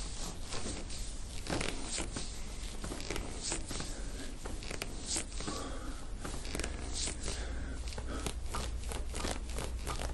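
Hands and forearm rubbing and pressing on bare skin during a massage of the upper back, heard as irregular scratchy rustles and soft ticks, over a low steady hum.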